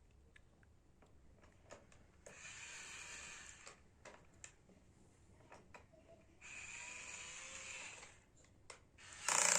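A small drill run in three short bursts of about a second and a half each, with small clicks in between; the third burst is the loudest.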